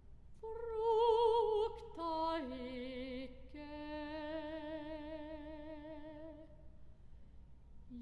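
Soprano voice singing a phrase without clear words, with wide vibrato: a high note, then a step down to lower notes, the last held for about three seconds before it fades away.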